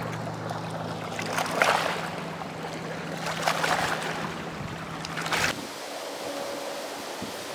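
Outdoor ambience: a steady rush of noise that swells three times. A low steady hum underneath stops about five and a half seconds in.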